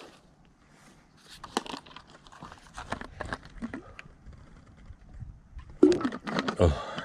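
Hiker handling gear during a rest stop: scattered small clicks, crinkles and rustling, with a louder burst of handling noise near the end.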